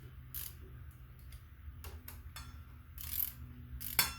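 Hand ratchet wrench clicking in short strokes as a nut is tightened down on the front wheel's axle, with a sharp metallic clack near the end.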